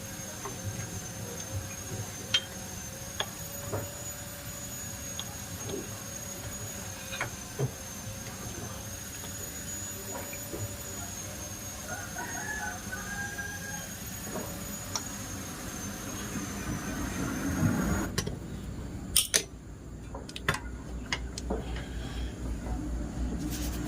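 A rooster crows once about halfway through over a steady background broken by scattered light clicks and taps. A few sharper clicks come near the end.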